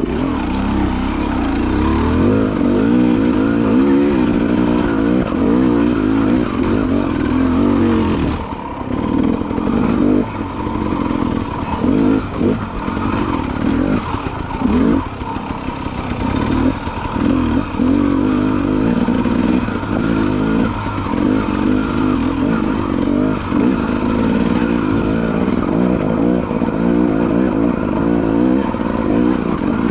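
Dirt bike engine under ridden load, revving up and down continually as the throttle is worked, with a brief drop in revs about nine seconds in and short throttle-offs after that.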